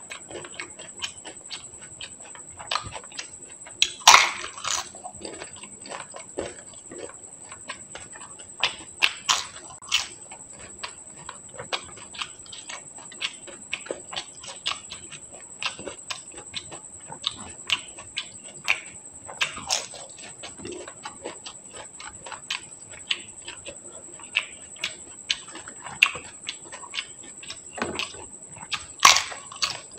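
Close-miked eating of pani puri: crisp puris crunching and wet chewing, a steady run of small mouth clicks and squishes broken by louder crunches about four seconds in, around nine to ten seconds, near twenty seconds and near the end.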